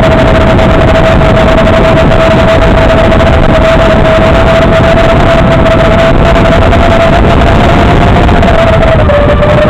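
FPV quadcopter in flight, heard over its analog video link: a loud, steady rush of noise with one steady motor tone that dips slightly about nine seconds in.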